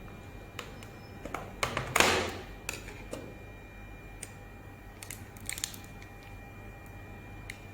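A few light clicks and a brief rustle about two seconds in, with another cluster of clicks near the middle, over a faint steady high tone.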